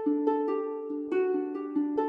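Background music: a light plucked-string melody, quick notes at about four a second.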